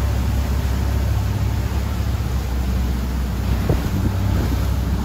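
Motor yacht running at speed over open water: a steady low rumble with rushing water from the hull and wake, and wind buffeting the microphone.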